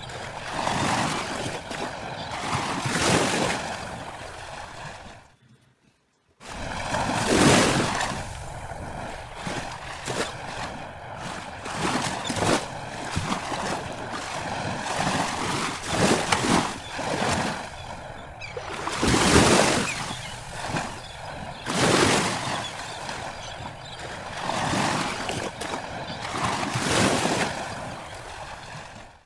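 Sea surf washing in, a noisy rush that swells and fades every two to three seconds. It cuts out for about a second around five seconds in.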